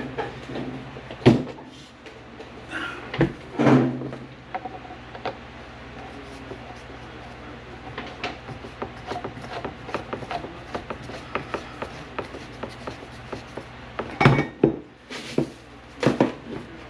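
Scattered knocks, clicks and rubbing from tools and materials being handled, with a few sharper knocks over a steady low hum.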